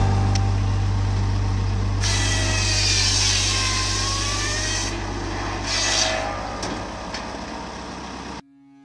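A tractor's PTO drives a circular saw with a 600 mm blade, running with a steady low hum. The blade cuts through a firewood log, loudest from about two to five seconds in, its note dipping under the load and then recovering. The sound cuts off suddenly near the end.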